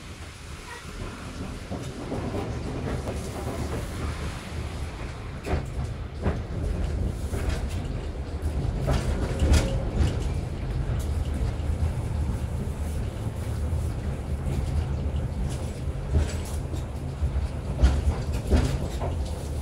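Tram heard from inside the car as it rolls along its rails: a steady low rumble that grows louder about two seconds in, with scattered clacks and knocks as the wheels pass over track joints and crossings.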